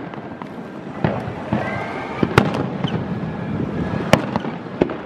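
Fireworks display: aerial shells bursting with sharp bangs, four of them, the loudest a little over two seconds in, with a continuous low rumble between.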